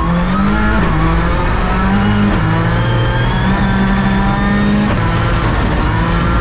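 Subaru WRX rally car's turbocharged flat-four engine heard from inside the cabin, accelerating hard through the gears on dirt. The pitch climbs and drops back at quick upshifts about a second in, past two seconds and around five seconds.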